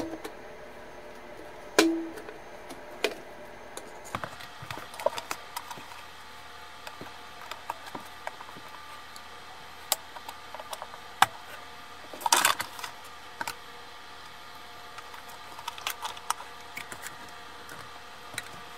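Scattered clicks and light knocks of a screwdriver and plastic connector parts being handled as wires are worked free from a rice cooker's induction coil assembly, with a short burst of rattling clicks about twelve seconds in. Faint steady tones run underneath.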